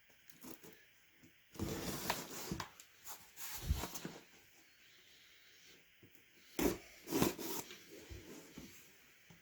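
A cardboard subscription box being opened and its contents handled: irregular rustling and rubbing of packaging in two longer spells, with a few short knocks.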